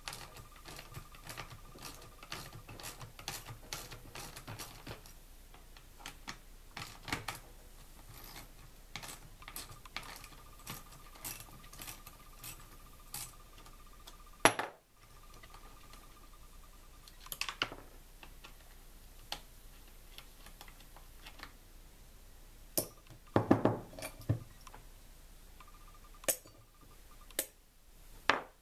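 Small metallic clicks and clinks of a hand tool undoing the two 8 mm bolts holding the air filter housing on a Stihl MS250 chainsaw, with a few louder knocks: one sharp one about halfway through and a cluster a little later.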